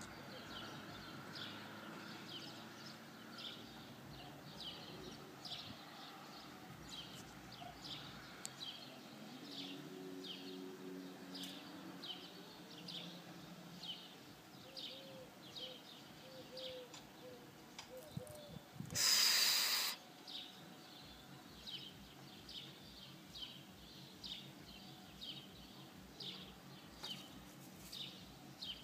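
A bird chirping over and over, a short high chirp about once or twice a second, over faint background noise. About two-thirds of the way in, a loud rushing noise lasts about a second.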